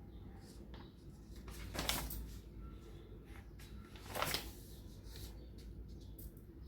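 Faint room tone with two brief soft rustles or scuffs, about two and a half seconds apart.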